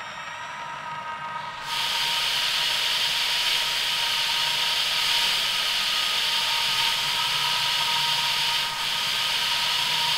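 Steady machine whine, joined about two seconds in by a loud, even hiss that starts abruptly and dips briefly near the end: a paste-extrusion nozzle rig laying down activated-carbon paste.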